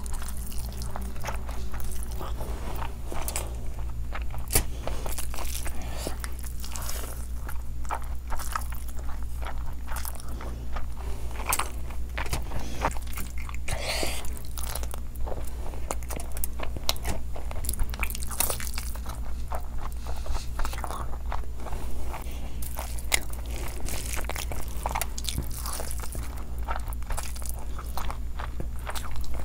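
Close-miked eating: a person chewing large handfuls of rice eaten by hand, with many short wet smacks and clicks, over a steady low hum.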